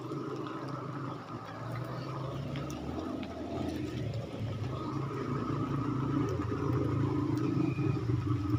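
A small engine running steadily, slowly growing louder.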